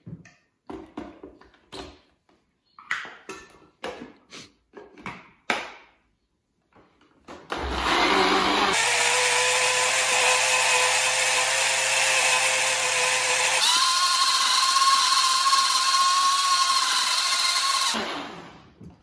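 Clicks and knocks as the blender jug is handled and set on its base, then a countertop blender's motor runs for about ten seconds, blitzing fish-and-potato soup. Its pitch steps up to a higher speed about halfway through the run before it cuts off.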